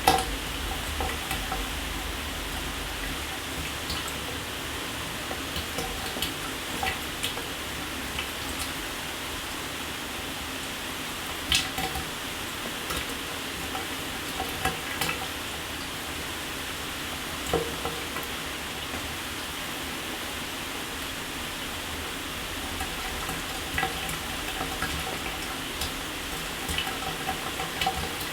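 Shower running: a steady hiss of falling water spray, with irregular small spatters and drips and a few louder splashes scattered through.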